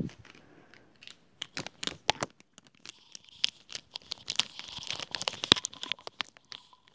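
Markers handled right up against an earphone microphone: a run of sharp clicks and taps, with crinkling in the middle.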